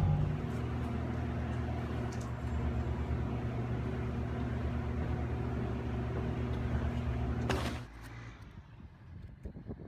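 Steady low machine hum of shop equipment, cut off by a sharp click near the end; a few faint ticks follow.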